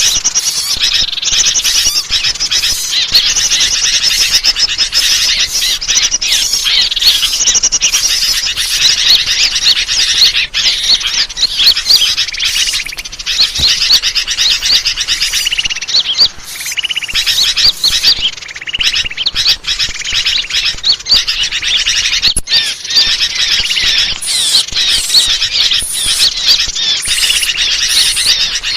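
Bird-lure (pikat) recording: a dense, continuous chorus of many small birds chirping and trilling rapidly at high pitch, without pause, meant to draw wild birds in.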